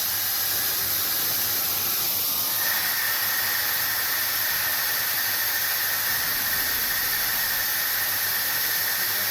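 CNC milling machine drilling aluminium: a steady hiss with a thin, steady high whine that comes in a little under three seconds in.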